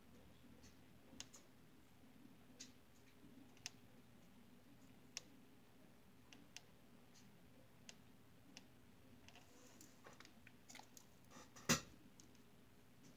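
Faint, scattered clicks and taps of a thin nail-art tool against plastic nail tips on a practice hand, about one a second, over quiet room tone, with one sharper click near the end.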